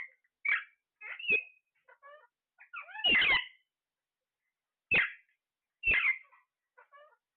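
Parrots calling: about five short, harsh squawks, the longest about three seconds in, with softer chattering chirps between them.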